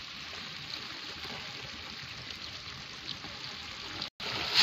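Steady soft watery hiss with scattered small clicks from a wet fishing net packed with live crabs as it is handled and shaken loose. The sound breaks off abruptly near the end.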